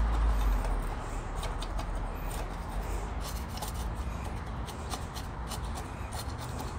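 Coarse gritty bonsai soil mix rustling and scratching as it is pressed and poked into a terracotta pot with fingers and a small stick, with many small clicks of grit. A low rumble fades out within the first second.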